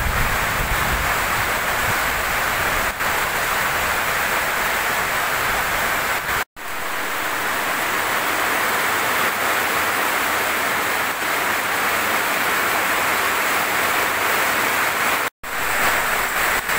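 Heavy rain pouring down in a steady downpour, cut off for an instant twice, about six and a half and fifteen seconds in.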